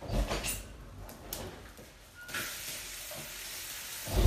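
Hot cooking oil in a large wok beginning to sizzle about two seconds in, a steady hiss that carries on, after a few knocks of utensils at the start and a low thump near the end.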